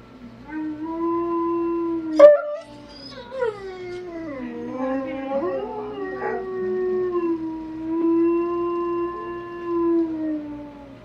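Husky-type dogs howling: long, drawn-out howls that glide slowly up and down in pitch, with two voices overlapping for a couple of seconds in the middle. A sharp click about two seconds in is the loudest sound.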